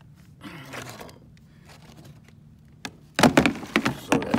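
Loose objects being handled: after a few quiet seconds, a quick run of loud knocks and rattles starts about three seconds in.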